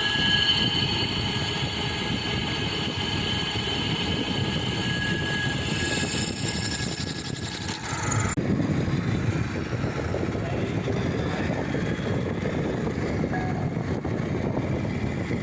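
Drilling machine running with a steady mechanical drone and a high whine on top. About eight seconds in the whine cuts off and a lower, rougher machine noise carries on.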